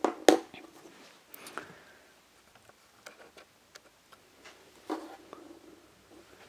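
A tablet handled and set down on a hard tabletop: two sharp knocks right at the start, another about a second in, a fourth near five seconds, with faint ticks and taps between.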